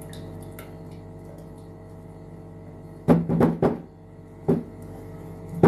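A steady machine hum, with a quick run of knocks about three seconds in and single knocks near four and a half seconds and at the end.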